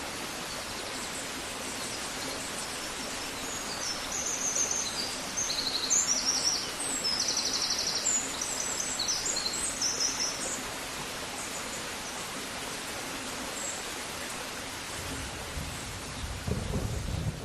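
Songbird singing bursts of rapid high trills over a steady outdoor hiss, from about four to ten seconds in. A low rumble builds near the end.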